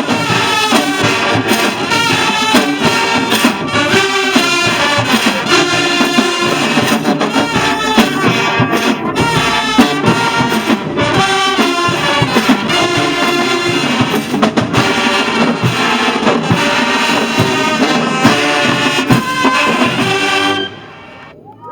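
School band playing loudly, a brass section of trumpets and trombones over drums. The band cuts off sharply about a second before the end.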